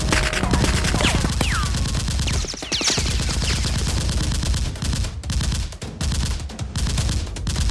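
Rapid automatic gunfire: a continuous barrage of shots in quick succession. A few falling whistles sound around the first and third seconds.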